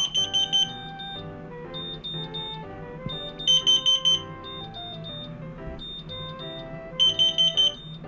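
Carbon monoxide alarm sounding a burst of four or five rapid high beeps, repeated three times about three and a half seconds apart, over background music. It is a false alarm set off by ethyl alcohol vapour, not by carbon monoxide.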